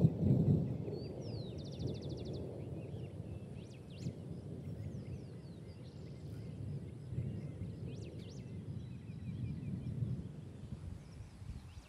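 Outdoor dawn ambience in woodland: a low, fluctuating rumble with scattered high bird chirps and calls over it, including a quick rapid trill about a second and a half in.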